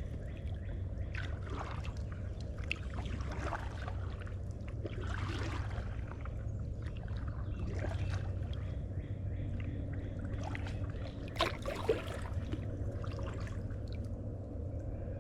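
Kayak paddle strokes, the blades dipping and swishing through the water every second or two with water trickling off them, and two sharp knocks about two-thirds of the way through.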